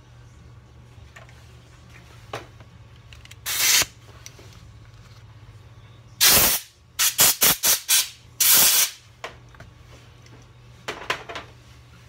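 Short hissing spray bursts, about eight of them, with a quick run of several in the middle, as gearbox gears and parts are sprayed clean.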